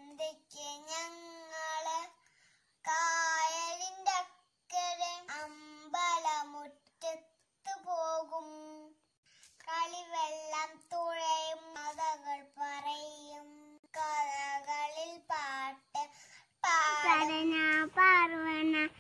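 A kindergarten-age child singing a song, in short phrases with brief pauses between them, louder near the end.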